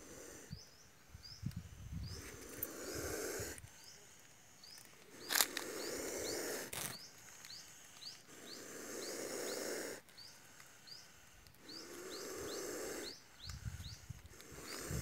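Indian spectacled cobra (Naja naja), hood spread, hissing defensively: four long, breathy hisses about three seconds apart. A small high chirp repeats steadily behind them.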